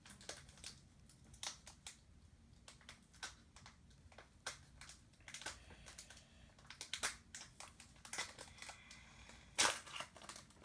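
Pokémon booster pack's foil wrapper crinkling and cards being handled: irregular faint crinkles and clicks, with a louder rustle about nine and a half seconds in.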